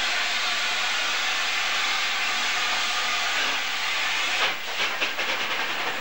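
Steam hissing steadily from a standing LNER A4 streamlined steam locomotive. About four and a half seconds in, the hiss breaks into a quick run of short sputtering bursts.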